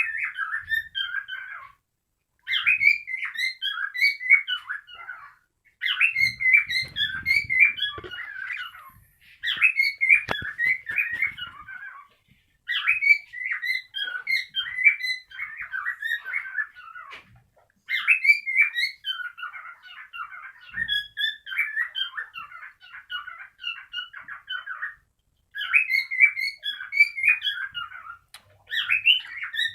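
Cockatiel warbling its whistled, chirpy song in phrases of a few seconds each, separated by short pauses.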